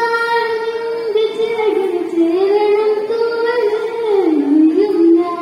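A girl singing solo into a microphone, holding long notes that glide slowly between pitches.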